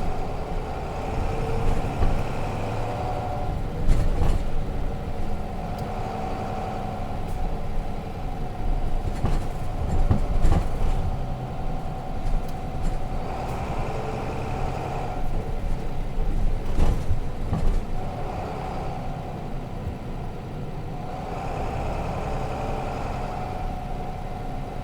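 Cabin sound of a Nissan Diesel RM bus with its FE6 inline-six diesel engine running, the engine and drivetrain whine rising in pitch through several stretches as the bus pulls away and accelerates. A few sharp knocks stand out, about four, ten and seventeen seconds in.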